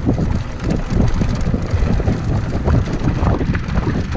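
Mountain bike rolling fast downhill over a bumpy brick-paved and dirt trail: tyre rumble with irregular knocks and rattles from the bike over the bumps, and wind buffeting the microphone.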